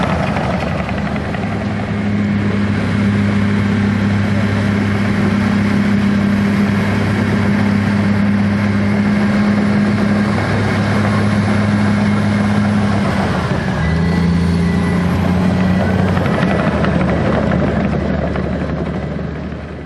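Komatsu D65PX bulldozer's diesel engine running steadily under load. Its note drops and changes about 14 seconds in, and the sound fades out at the very end.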